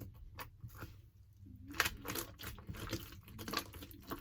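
Homemade glue slime being worked by hand: a scatter of faint sticky clicks and squelches.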